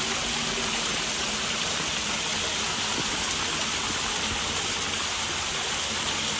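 Fountain water jets spraying steadily from rows of nozzles in both walls of a brick passage and splashing onto the ground: an even, unbroken hiss of spray.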